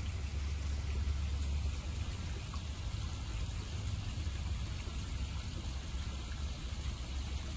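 Steady rush and splash of running water from a backyard koi pond's waterfall, over a low steady rumble.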